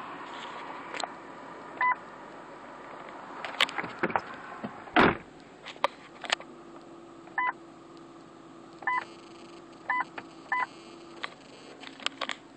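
Five short, identical electronic beeps from a 2004 Lincoln LS's dashboard, spaced irregularly among sharp clicks of buttons and switches. There is a louder knock about five seconds in.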